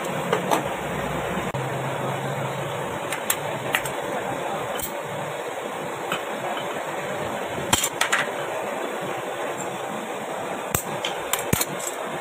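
Lead-acid battery plate stacks knocking and clinking against a steel comb jig as they are handled and set upright in it: sharp taps and clinks at irregular intervals over a steady background hiss.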